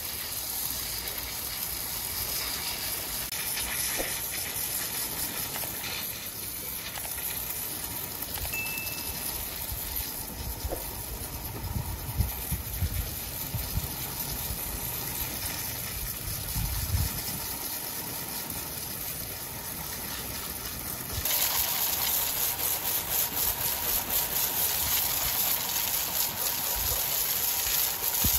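Large wood-sawing machinery running with a steady hissing noise and a few low knocks midway; about three quarters of the way through the sound turns suddenly louder and brighter and stays so.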